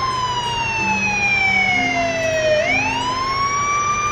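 Police car siren wailing: the pitch falls slowly, then sweeps quickly back up about two and a half seconds in and begins falling again.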